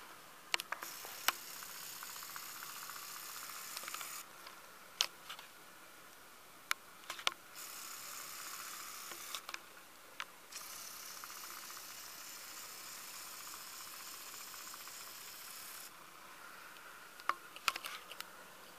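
Handheld camera handling noise: faint hiss that cuts in and out in stretches of a few seconds, with scattered sharp clicks and taps.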